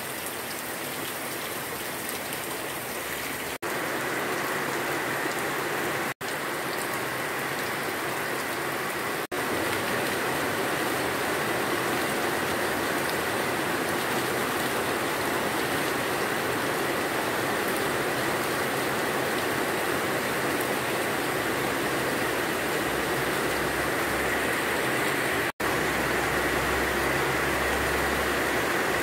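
Heavy tropical rain falling steadily, a constant even hiss, with rainwater runoff streaming over stones on the ground. The sound cuts out briefly a few times.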